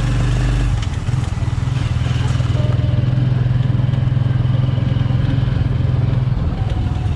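Motorcycle engine of a Philippine tricycle (motorcycle with sidecar) running steadily while riding, heard from inside the sidecar; the engine note dips briefly about a second in.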